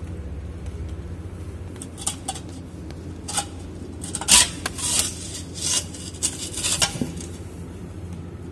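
Metal clinks and scrapes as a dirt-clogged perforated steel strainer basket is worked loose and drawn out of a chilled-water line strainer housing. The loudest knock comes a little over four seconds in, over a steady low hum.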